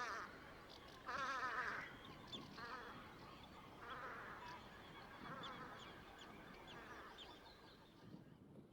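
Velvet scoters calling: a loud, harsh, wavering call about a second in, followed by several quieter rasping calls that fade toward the end, with faint short high notes scattered among them.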